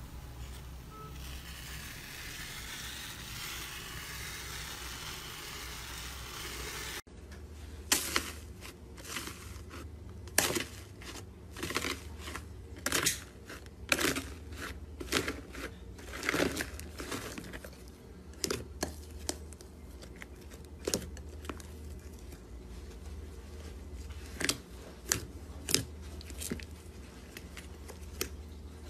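Foamy slime being stirred, giving a fine, steady crackle for the first several seconds. Then hands knead soft slime in a bowl, with irregular sharp pops and clicks.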